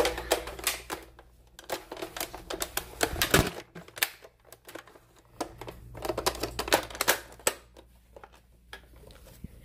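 Irregular clicks, taps and knocks with some rustling: handling and movement noise. They come in clusters near the start, around the middle and again a little later, with quieter gaps between.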